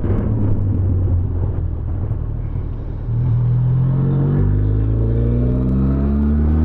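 Benelli TRK 502 X's parallel-twin engine heard from the saddle over wind rumble as the bike is pushed hard. The revs climb from about three seconds in, fall back with an upshift around four and a half seconds, then climb again.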